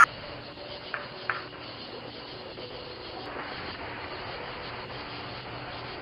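Steady hiss of background noise through a video doorbell's microphone, with two small clicks about a second in.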